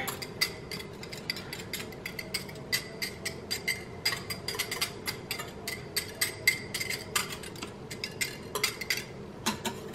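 Metal wire whisk clinking and scraping against a small glass bowl, several irregular clinks a second, as minced garlic is knocked out of the bowl.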